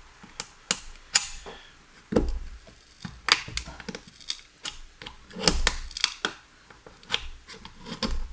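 Small screwdriver prying at the plastic casing of a DJI FPV drone battery to free the glued-in LiPo cell: irregular sharp clicks, snaps and scrapes of plastic, with a couple of duller knocks.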